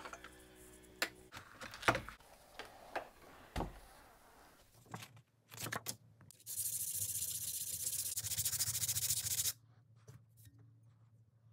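Abrasive rubbed hard against a steel razor blank clamped in a vise: a steady, scratchy rasp lasting about three seconds, after a few scattered knocks and clicks of handling.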